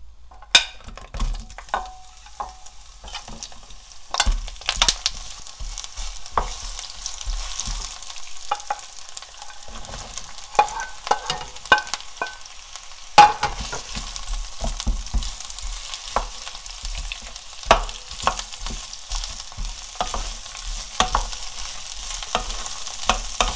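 Sliced shishito peppers, onion and carrot sizzling in hot oil in a nonstick pan, stirred with a wooden spatula that clicks and scrapes against the pan and plate. The sizzle swells about four seconds in.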